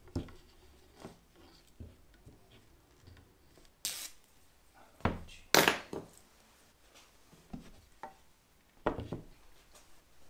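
Scattered knocks, rubs and rustles as strips of double-sided tape are laid along a wooden cupboard door frame on a workbench. Two louder, sharper noises come about four and five and a half seconds in.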